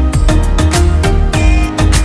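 Background music with a steady beat and a heavy bass.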